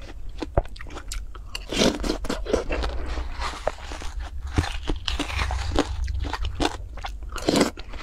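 Close-up chewing and biting of watermelon flesh, a run of irregular crunches, with a metal spoon digging into the half melon.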